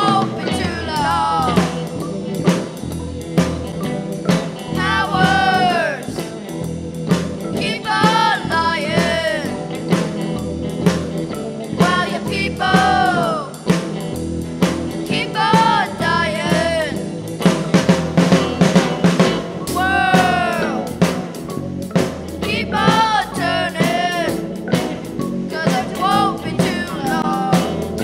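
Teenage rock band playing a song: a singer's phrases come and go every few seconds over a steady drum-kit beat, electric bass and keyboard.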